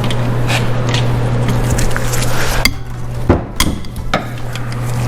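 Metal clinks and knocks of hand tools working on a Subaru EJ253 engine block during teardown, with a few sharp knocks past the middle, over a steady low hum.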